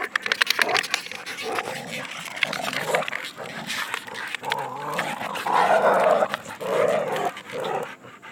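Dogs growling during rough play. A quick run of clicks comes in the first second or so, and the loudest growls come past the middle.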